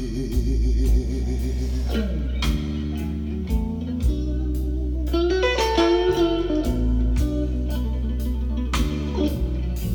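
Blues-rock record played on a Linn Akito turntable with a Nagaoka MP200 cartridge: an instrumental guitar passage with wavering, vibrato-laden notes over a steady bass line, between sung lines.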